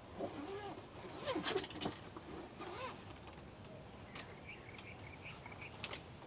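Light knocks and clicks as a soft zippered carrying case is handled on a wooden table. Faint chirping follows from about four seconds in.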